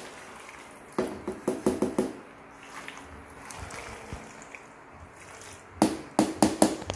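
Wooden spoon knocking and scraping against a metal pot while stirring thick macaroni salad: a quick run of clattering strokes about a second in and another near the end.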